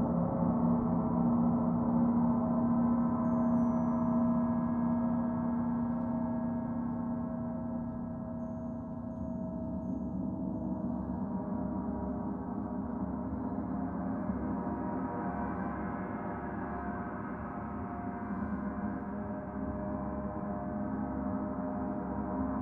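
Several large gongs played together, a dense, sustained wash of overlapping ringing tones in gong-bath style. It eases a little about eight seconds in, then builds again and grows brighter from about eleven seconds.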